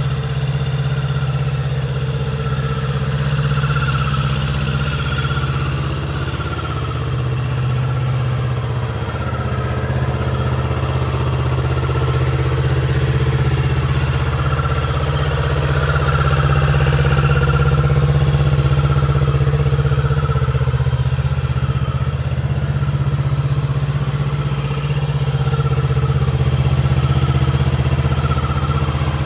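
Kawasaki Z650RS's 649 cc parallel-twin engine idling steadily.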